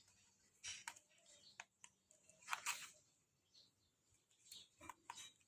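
Near silence: room tone with a few faint, brief sounds scattered through it.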